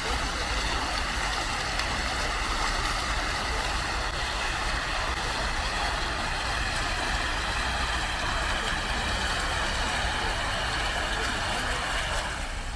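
Fountain jets splashing into a shallow pool: a steady rush of falling water.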